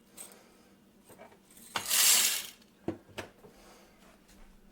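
Light metallic clicks and knocks of espresso machine parts being handled, with one short rush of noise about two seconds in that is the loudest sound.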